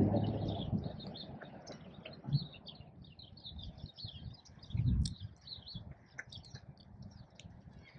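Small birds chirping and twittering in quick, scattered notes, with two dull low thumps about two and a half and five seconds in.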